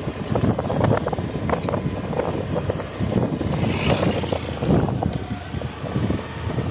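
Wind buffeting the microphone on a moving motorbike, in irregular gusts, with the bike's running noise underneath.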